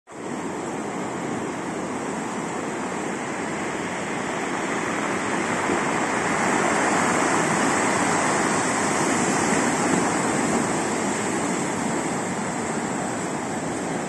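Storm surf: heavy waves breaking and churning into foam, a continuous rush of water that grows louder around the middle.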